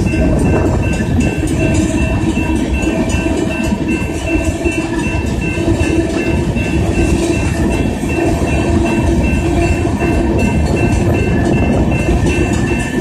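Freight train of tank cars rolling through a grade crossing: steady rumble and clatter of steel wheels on the rails. Over it, the crossing's warning bell rings rapidly and without a break.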